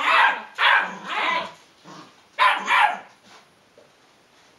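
Puppy barking: three sharp barks in the first second and a half, then two more in quick succession at about two and a half seconds.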